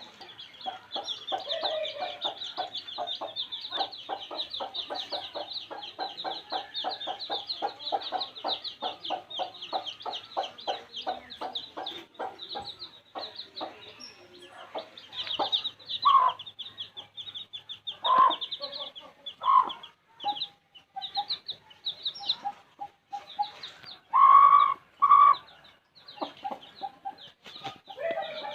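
A brood of baby chicks peeping rapidly and continuously, the peeps thinning out in the second half, with a hen clucking among them. The hen's louder, lower calls stand out several times in the second half.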